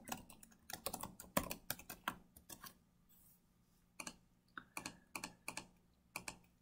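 Faint computer keyboard typing, quick keystrokes for about the first two and a half seconds. After a pause come a few scattered single mouse clicks.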